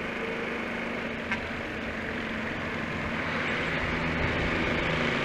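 Honda C70's small single-cylinder four-stroke engine running steadily on the move, with a steady rush of wind noise on the microphone.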